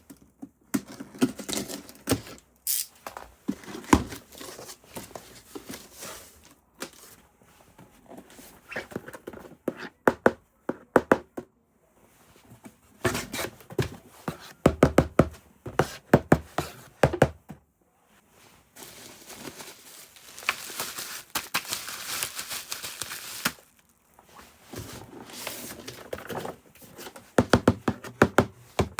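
Toy packaging being unboxed by hand: plastic and cardboard crinkling and tearing, with scattered clicks and knocks. A little past the middle comes a few seconds of continuous rustling or tearing.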